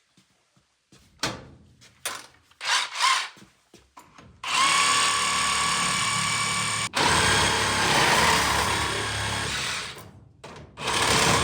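Handheld power drill running in long spells: one run of about two and a half seconds, a split-second stop, then about three seconds more, and a short run near the end. A few knocks and clunks come before it.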